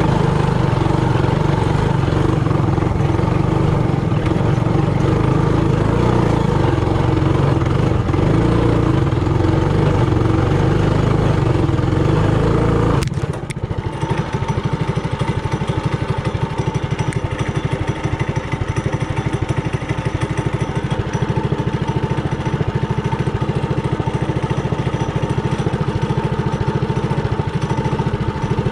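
Trailmaster Hurricane 200X minibike's single-cylinder four-stroke engine running under throttle, then dropping suddenly to a steady idle about 13 seconds in.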